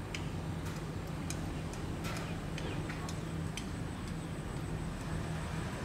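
Outdoor background of a steady low hum and hiss, with scattered sharp ticks and a few short chirps at irregular moments.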